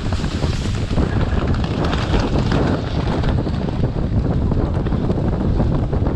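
Heavy wind buffeting on a helmet-mounted action camera's microphone at racing speed, with the irregular thudding of galloping racehorses' hooves mixed into it.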